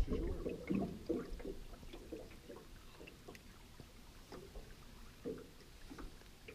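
Small waves lapping and knocking irregularly against the hull of an aluminium boat, faint.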